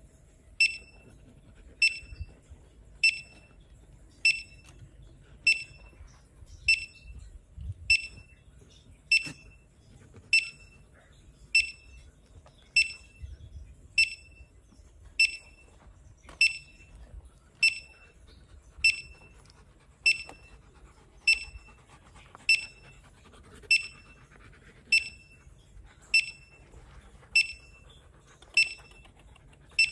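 Handheld metal detector beeping: a short, high electronic beep repeating at an even pace, about one every 1.2 seconds.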